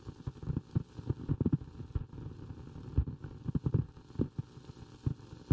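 Irregular soft thumps and rustles, many a second, close to a microphone: handling noise on a handheld mic.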